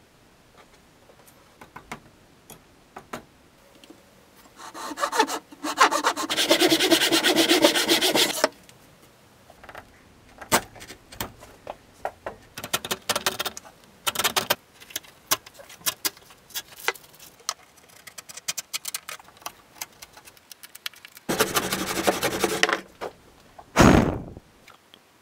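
A hand saw cuts the walls of a dado across a hardwood board against a clamped guide board, with a few seconds of rapid strokes. Then comes a run of scattered clicks and scrapes as the waste is chiselled out of the groove, followed by another short burst of sawing. Near the end there is a puff of breath as the chips are blown off.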